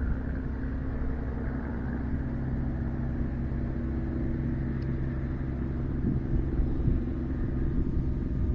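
Steady low mechanical rumble with a constant low hum.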